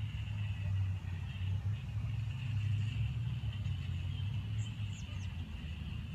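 Backyard outdoor ambience: a steady low rumble, like distant road traffic, under a steady high-pitched drone, with a few short high chirps about four and a half to five seconds in.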